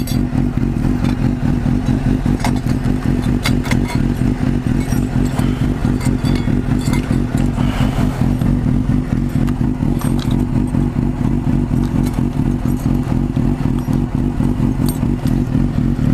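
Suzuki GSX-R 750 K4's inline-four engine idling steadily through an open aftermarket slip-on exhaust with its dB killer removed, a fast even pulse with no revving.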